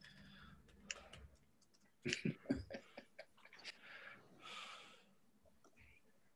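Faint breathing close to a microphone, with scattered small clicks and a short cluster of sharper knocks about two seconds in.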